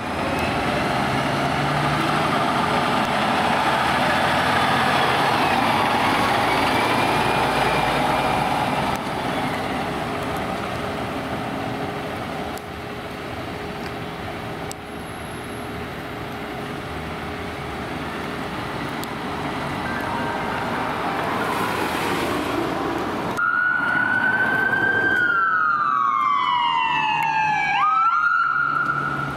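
Siren and engine of a fire engine responding and driving off, fading away. Then an ambulance's electronic siren wails: one slow falling sweep, then a quick rise back up near the end.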